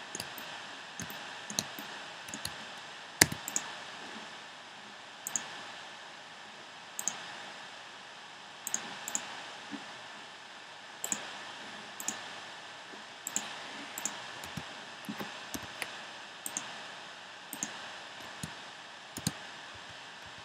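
Scattered clicks of a computer mouse and keyboard at irregular intervals, roughly one a second, with a sharper click about three seconds in, over a steady hiss.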